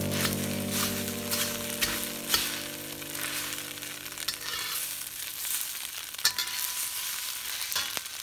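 Quail eggs and crushed eggshells sizzling as they fry in a pan, with a spatula scraping and tapping as it breaks them into pieces. A held tone fades out over the first few seconds.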